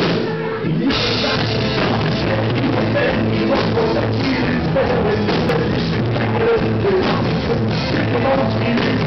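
Live rock band playing loud: electric guitar and drum kit with a male singer on a handheld mic. The drums and cymbals come in fully about a second in.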